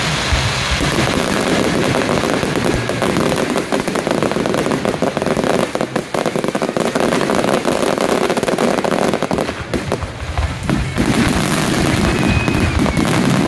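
Fireworks display going off in a dense, rapid barrage of bangs and crackling from bursting shells, with brief lulls about six and ten seconds in.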